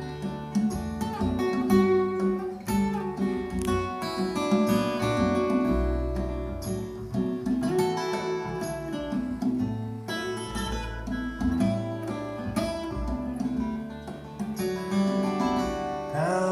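Acoustic guitar music, plucked and strummed, played back through a pair of Radiotehnika S30 bookshelf loudspeakers and heard in the room.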